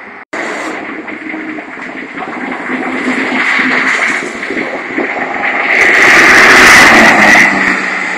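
Sports car at speed on a race track straight, its engine growing steadily louder as it approaches, peaking loudly as it passes close by around six to seven seconds in, then dropping away. There is a brief dropout in the sound near the start.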